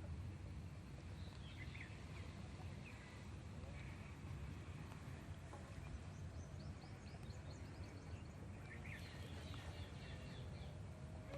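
Faint, short bird chirps in a few scattered clusters over a steady low outdoor rumble.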